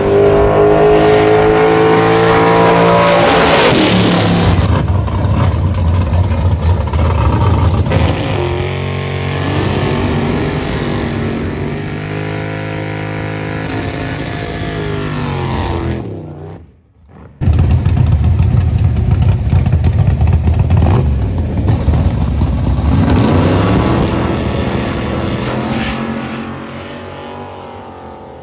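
Drag race car engines revving and accelerating hard, the engine pitch climbing steeply in the first few seconds and rising and falling again near the end. The sound cuts out abruptly for about a second two-thirds of the way through, then returns just as loud.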